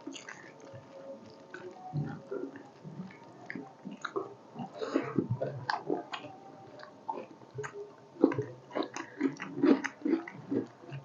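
Close-miked eating: irregular biting, chewing and wet mouth smacks from people eating a fish curry and rice meal, denser and louder in the second half.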